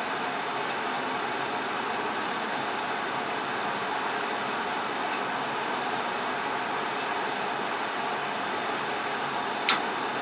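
1990 Heil gas furnace's blower fan running steadily with the burners off, and a single sharp click near the end. The blower runs nonstop while the burners cycle on and off every minute, which the owner blames on a failing thermostat control on the furnace.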